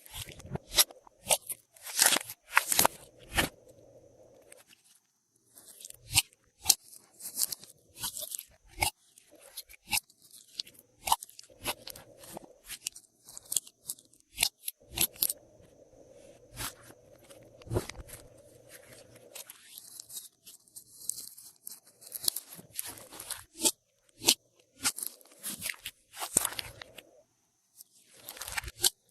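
Glossy slime being worked with assorted add-ins mixed in, giving a fast, irregular run of sticky clicks, pops and crunches, with a few brief pauses.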